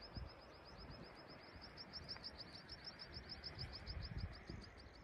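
A small bird singing a long, fast trill of high chirps, about ten a second, with a few soft low thumps underneath.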